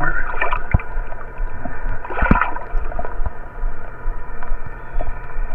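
Muffled sloshing and gurgling of lake water around a camera held at or under the surface, over a steady hum. A few knocks come through, the loudest a little after two seconds in.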